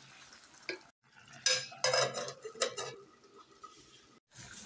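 A utensil clinking and scraping against a cooking pot as the food is stirred, with a cluster of sharp knocks in the middle.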